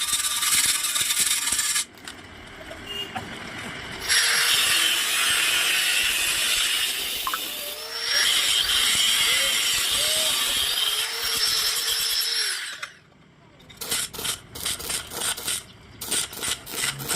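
Electric arc welding on a round pipe: a steady frying crackle of the arc in long runs, stopping and starting again. Near the end it gives way to a quick series of scraping strokes on the metal.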